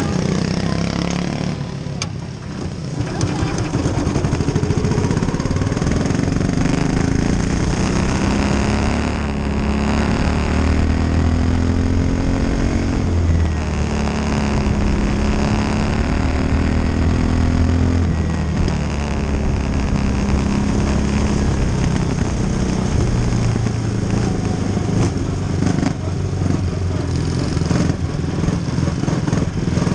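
Quarter midget race car's small single-cylinder engine heard from onboard, running hard at racing speed. Its note dips briefly about two seconds in, then rises and falls repeatedly as the throttle comes off and back on.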